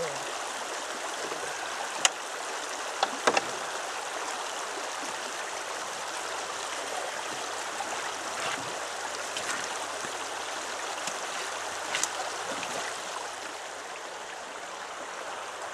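Shallow creek water running steadily, with a few sharp clicks: one about two seconds in, a close pair about a second later, and another near the end.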